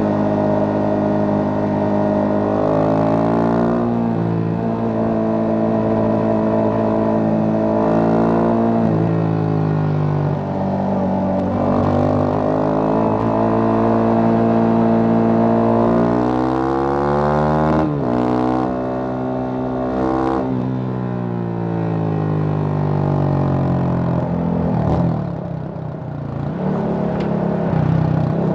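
Yamaha FZ25's single-cylinder engine running through an MTG MotoTunings aftermarket exhaust while riding. The revs climb past the middle with two quick gear changes in a row, then the pitch falls as the bike slows near the end.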